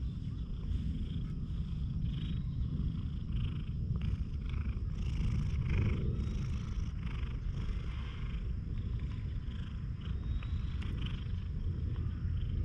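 A tabby cat purring steadily while being stroked.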